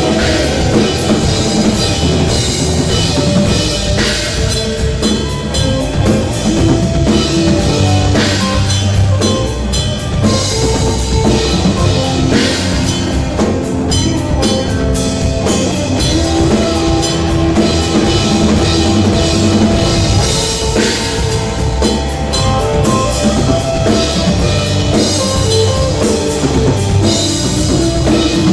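Rock band playing, with a drum kit driving a steady beat under electric guitar and bass.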